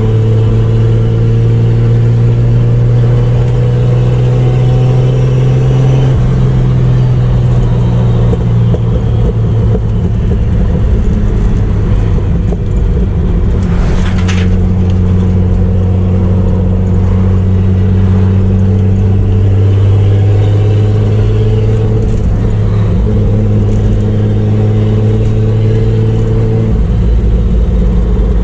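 Chevrolet Opala's turbocharged inline six-cylinder engine running as the car is driven, a loud, even note that rises gently in pitch, changes about six seconds in and again near the end. A short hiss comes partway through.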